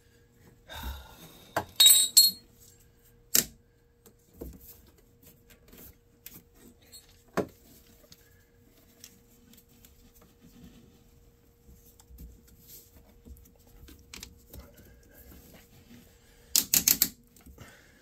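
Hand tools clicking and clattering as ratcheting hose pinch-off pliers are worked onto a rubber coolant hose, with scattered single clicks and a quick run of four or five ratchet clicks near the end. The loudest clatter comes about two seconds in.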